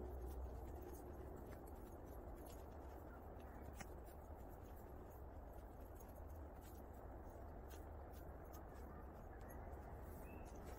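Faint footsteps crunching and scuffing in snow, with scattered small crackles, over a low steady rumble.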